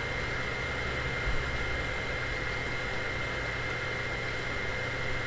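Vacuum cleaner running steadily, a constant motor hum with a high whine.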